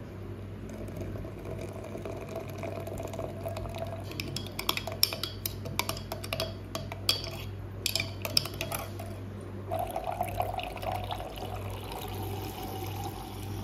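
Hot water poured from a kettle into a glass mug of instant coffee powder, followed by a metal spoon stirring and clinking repeatedly against the glass. Near the end, water is poured into the mug from a plastic sachet.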